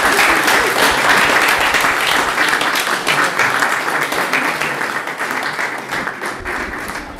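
Audience applauding at the close of a speech: dense clapping that is loudest at first and slowly dies away.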